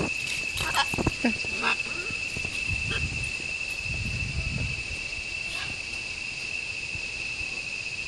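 Steady high-pitched drone of insects, with a few short harsh macaw squawks in the first two seconds and again around the middle.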